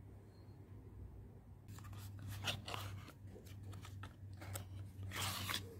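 Paperboard product carton being opened by hand: its flaps crackle and rustle in a run of small crinkles, starting about two seconds in, with the loudest rustle near the end.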